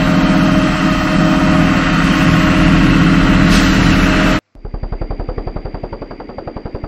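A heavy military truck's engine running loud and steady, cut off abruptly about four seconds in. A helicopter's rotor then takes over with a rapid, even chopping and a thin high whine.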